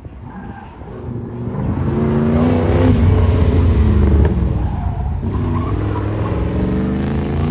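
Car engine accelerating hard on an autocross course. It grows louder and climbs in pitch, drops back about five seconds in, then pulls on steadily.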